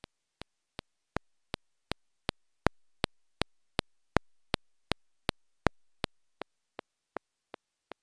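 Small handheld electronic metronome clicking a steady beat, about 2.7 clicks a second (roughly 160 beats per minute), giving the tempo before the song. The clicks grow louder toward the middle and fade again near the end.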